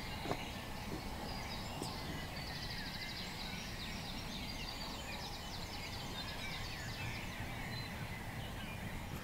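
Birds calling outdoors: many short chirps and whistles and a quick trill about three seconds in, over a steady low rumble.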